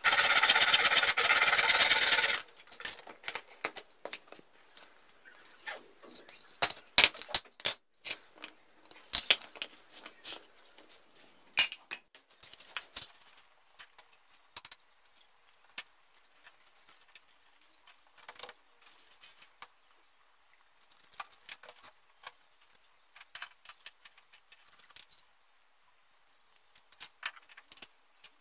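Hand saw cutting through a small piece of wood, stopping abruptly about two seconds in. Then scattered clicks, knocks and light scraping as wooden pieces and small tools are picked up, set down and marked.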